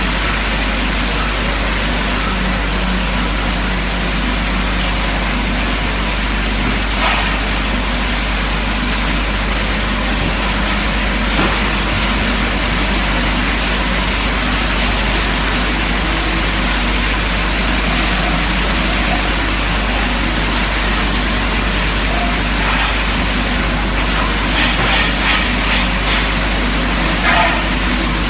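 Automatic metal-polishing machine running, its large polishing wheel spinning against a cast metal part: a loud, steady noise, with a few short clicks, several in quick succession near the end.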